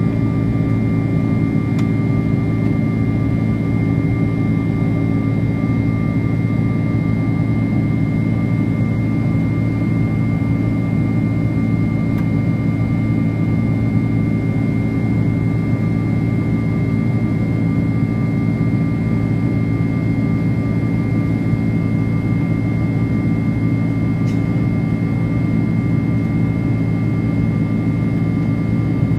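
Cabin noise of a Boeing 767-300ER in flight, heard inside the cabin next to the wing: its GE CF6 turbofan engines and the airflow make a steady low rumble, with two steady whining tones above it.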